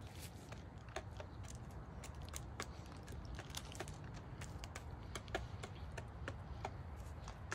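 Chickens pecking at feed, their beaks tapping on plastic in quick, irregular clicks, several a second.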